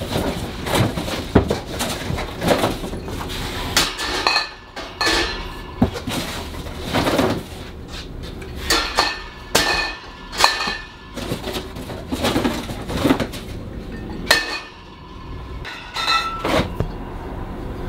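Glass liquor bottles clinking and knocking against each other as they are lifted out of cardboard cases and stocked. It comes as a run of irregular clinks and knocks, some ringing briefly.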